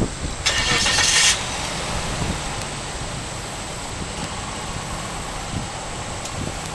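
The ferry's engine running steadily with wind on the microphone. A loud hiss lasting under a second comes near the start.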